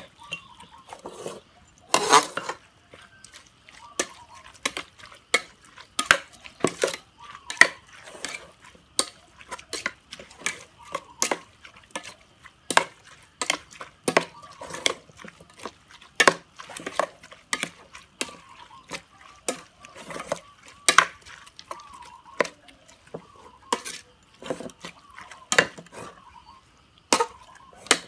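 Metal spoon stirring and tossing a salad in a metal pot, clinking and scraping against the pot's sides in irregular knocks, several a second.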